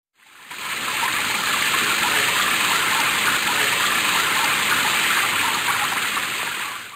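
Water gushing steadily from a running tap. It swells in over the first second and stops suddenly at the end.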